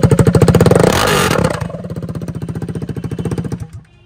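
KTM RC 390's single-cylinder engine running with its underbelly stock silencer removed, very loud, with a rapid pulsing exhaust beat. There is a brief rev about a second in, then it runs on quieter and cuts off suddenly near the end.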